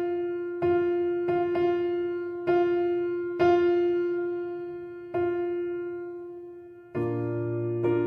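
Background piano music: the same note struck again and again at uneven intervals, each ringing and fading, then a fuller chord with lower notes about seven seconds in.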